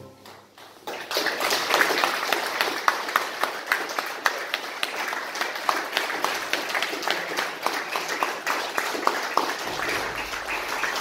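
Audience applauding: a roomful of people clapping, starting about a second in after a short hush.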